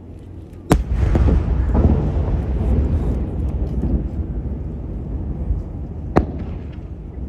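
Aerial firework shells bursting: a sharp bang about a second in, followed by several seconds of low rumble that slowly fades, then a second sharp bang near the end.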